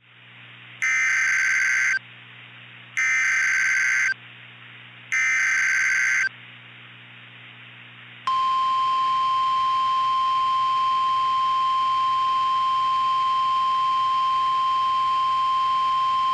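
Emergency Alert System header: three short bursts of warbling two-pitch digital data tones, about a second each, then a long steady single-pitch alert tone starting about eight seconds in. The tones introduce an incoming tornado warning.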